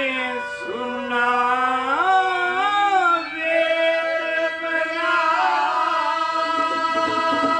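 A man singing a Haryanvi ragni, drawing out long held notes that slide up and down in pitch, over steady sustained instrumental notes.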